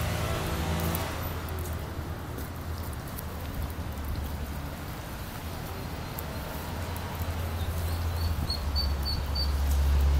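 Water flowing steadily in a shallow concrete channel over a low rumble, with a low droning tone that stops about a second in. Near the end comes a quick run of faint high peeps from a brood of ducklings.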